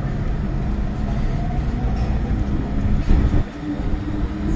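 MTR M-Train metro car running, heard from inside the carriage: a steady low rumble of wheels and running gear with a faint hum. There is a brief louder bump about three seconds in.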